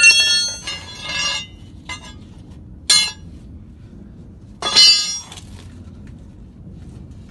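Steel tyre bars clanking against a truck's aluminium rim as the tyre bead is pried off by hand. There are four ringing metallic clanks: two at the start, a short one about three seconds in and a loud one near five seconds.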